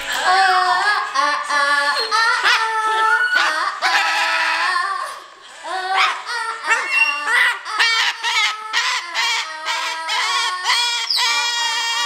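A song with a singing voice and a steady beat playing throughout.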